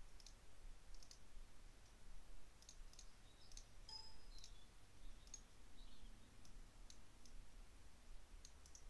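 Faint computer mouse button clicks, a dozen or so at irregular intervals, with a brief faint tone about four seconds in.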